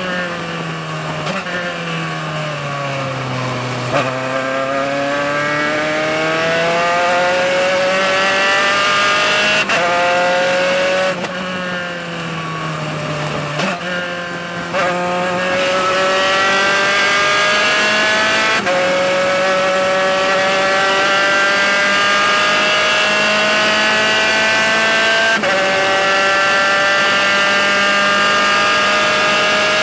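Spec Racer Ford's four-cylinder engine heard from the cockpit, working hard through a lap. The note falls under braking and downshifts, rises as the car accelerates, and dips again around the middle. It then climbs through the gears at high revs, with two upshifts heard as sudden drops in pitch.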